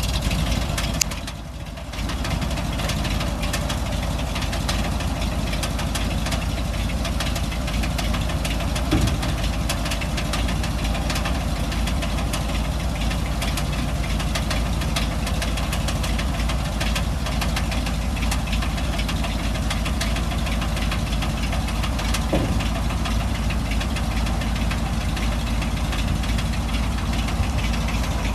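1982 Chevrolet C70 dump truck's 366 gas V8 running steadily at idle while the steel dump bed is lowered on its single-ram hydraulic hoist.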